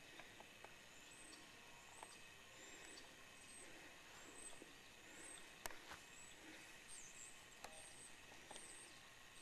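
Near silence outdoors, with a small bird's faint, high chirp repeating about every two-thirds of a second and a couple of soft clicks.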